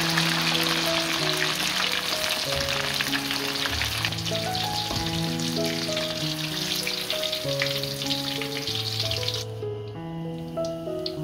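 Breaded pork cutlet pieces deep-frying in hot oil in a wok on their second fry: a dense crackling sizzle. It stops abruptly near the end, leaving only a few light crackles. Light background music plays throughout.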